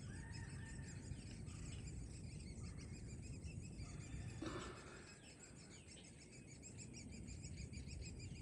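Woodpecker nestlings begging from inside the nest cavity: a faint, rapid, continuous high-pitched chirping over a low outdoor rumble.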